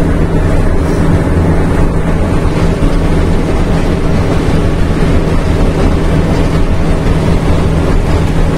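Old Scania-Vabis truck's diesel engine running steadily under way, heard from inside the cab together with road noise.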